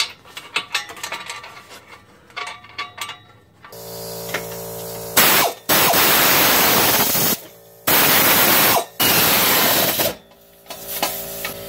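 Metal clinks of wrenches and bolts being worked on exhaust flange bolts. From about four seconds in, a steady hum begins, and four loud hissing bursts of noise, each up to about a second and a half long, come over it.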